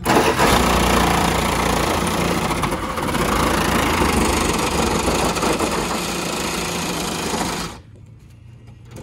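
Reciprocating saw cutting through the sheet-metal roof of a Honda Civic, running steadily, then stopping abruptly near the end.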